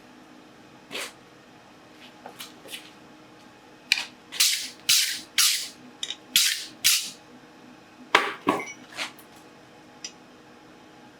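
A blacksmith's metalwork at the anvil: an uneven run of sharp metal strikes and short scraping strokes, the strokes coming about twice a second in the middle of the run, then tailing off into a few single hits.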